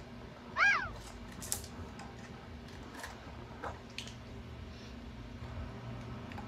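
A dog gives one short whine that rises and falls in pitch less than a second in, then a few faint scattered clicks as it noses and picks at celery pieces on the floor.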